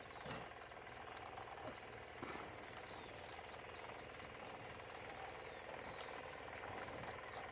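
Faint outdoor field ambience: a low, even hiss with scattered soft clicks and rustles.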